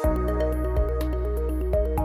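Electronic background music: a repeating arpeggiated synth melody over a heavy sustained bass that comes in right at the start, with light percussive ticks.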